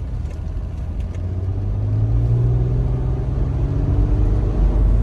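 Toyota FJ Cruiser's V6 engine and road rumble as the vehicle gets under way. The engine note rises a little in pitch midway and the sound grows steadily louder.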